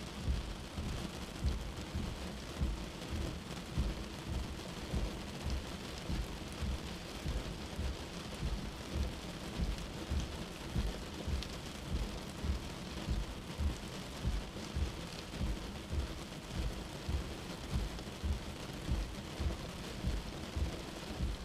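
Car windscreen wipers on the fast setting sweeping back and forth through rain, a regular low thump a little over once a second over a steady hiss of rain on the glass.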